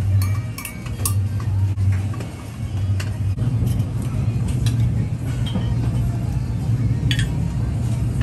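Scattered sharp clinks of cooking utensils against pans and dishes over a steady low hum of kitchen equipment.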